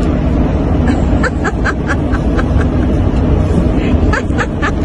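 Steady low road and engine rumble heard inside a moving motorhome's cabin. A small child's short giggles come about a second in and again near the end.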